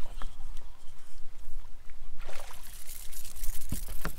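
Water lapping and sloshing against a bass boat's hull, with wind rumbling on the microphone. About halfway through a splashy hiss with irregular ticks sets in, and two sharp thumps come near the end.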